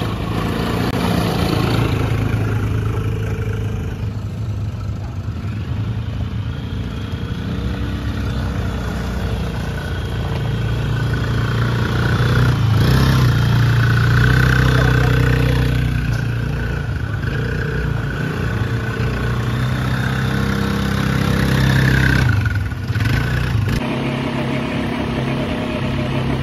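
300cc ATV (quad bike) engines running, idling and revving, the pitch rising and falling. The engines swell louder around the middle and again near the end.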